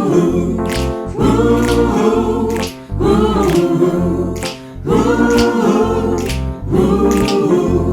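Gospel-style a cappella vocal ensemble singing sustained wordless chords over a sung bass line, with a sharp click marking each beat a little under once a second.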